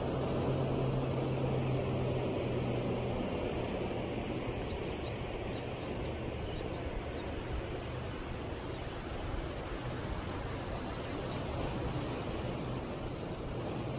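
Steady outdoor wash of sea and wind noise, with a distant engine hum that fades away over the first few seconds.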